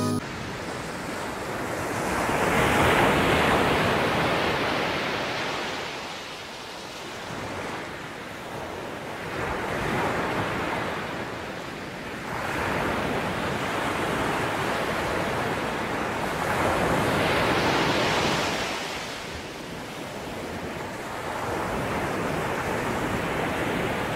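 Sea surf washing over a rocky shore, the sound of the waves swelling and ebbing about every five seconds.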